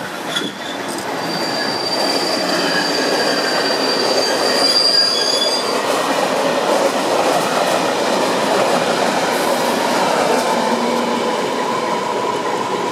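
Czech class 560 electric multiple unit passing close on the adjacent track, a dense rumble of wheels on rail with a high, steady squeal from the wheels for the first few seconds. A lower steady tone sets in towards the end.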